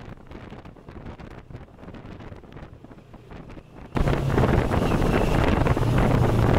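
CF Moto 650MT's parallel-twin engine running while the bike is ridden, with wind on the onboard microphone and road noise. About four seconds in, the sound jumps suddenly louder, with a steady low engine hum and heavier wind noise.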